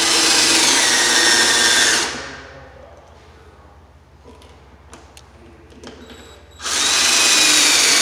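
Cordless drill-driver running in two bursts of about two seconds each, driving the mounting screws of a wall receptacle. A few light clicks and taps come in the pause between the bursts.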